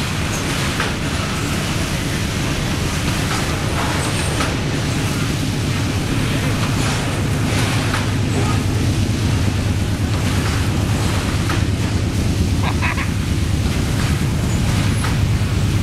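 Loaded coal hopper cars of a long freight train rolling past: a steady rumble of steel wheels on rail with scattered clicks, mixed with the hiss of water spraying onto the car tops. A low drone underneath grows a little louder in the second half.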